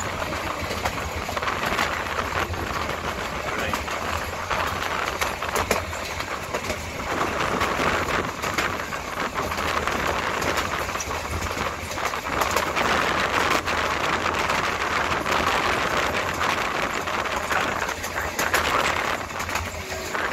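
Steady rushing, rattling noise of a moving vehicle, with many small clicks and knocks throughout.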